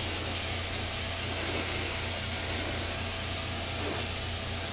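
Spray paint hissing steadily as a first light dusting coat of silver goes on, with a low steady hum underneath.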